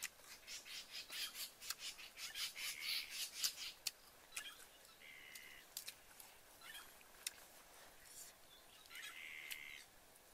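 Quick, crisp clicks and rustles of hands tearing grilled fish and lettuce on leaves, densest in the first few seconds, with two short bird calls about five and nine seconds in.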